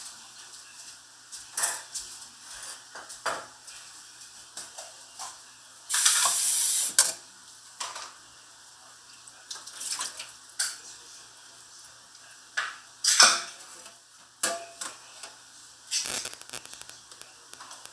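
Kitchen clatter: scattered knocks and clinks of a pot, dishes and utensils being handled on a countertop, with one steady hiss lasting about a second a third of the way in.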